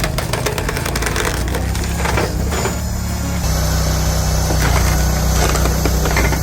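Wood chipper chewing through wood: a steady engine hum under dense cracking and snapping as the wood splinters, with the engine note shifting about three and a half seconds in.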